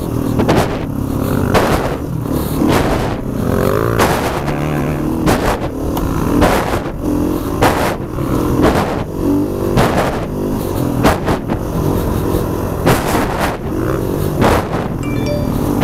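KTM 500 dirt bike engine running hard on a rough trail, its revs rising and falling, with frequent sharp knocks throughout.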